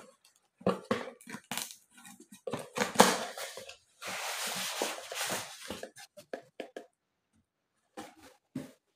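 Cardboard carton and styrofoam packing scraping and crackling as a boxed laser printer is slid out, with plastic wrap rustling. There are scattered crackles for the first few seconds, a longer scraping rush about four seconds in, then a few knocks.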